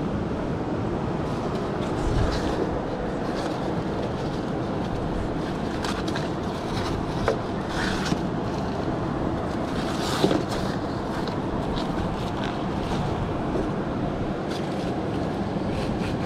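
Steady rushing noise of wind on the microphone and surf, with a few light taps and clicks from handling a fish on a plastic measuring tape.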